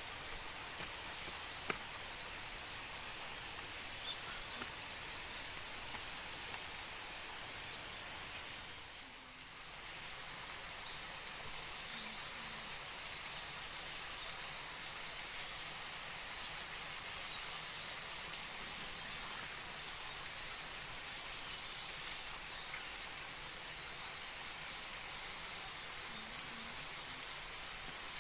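Steady, high-pitched insect chorus of forest insects, unbroken except for a brief dip, with a single sharp knock about eleven seconds in.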